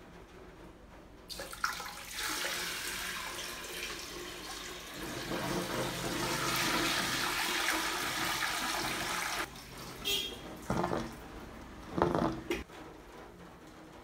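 A bucket flush: water tipped from a plastic bucket into a toilet bowl, rushing down into the bowl and trap and growing louder before it stops abruptly. A few short, loud sounds follow near the end, the last the loudest.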